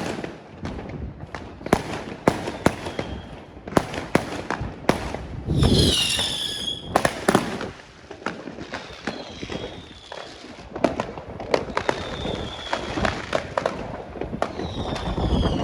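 Fireworks going off: a steady string of sharp bangs and crackles, with a loud, wavering whistle from a whistling shell about six seconds in and fainter whistles later.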